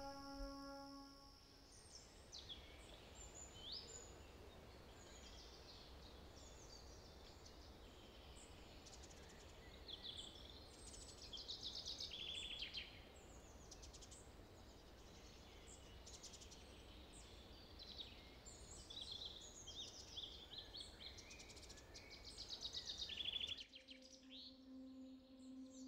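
Several songbirds singing in woodland: many short, overlapping chirps, trills and whistles over a faint low outdoor rumble. A held music note fades out about a second in, and a sustained low music chord comes in near the end.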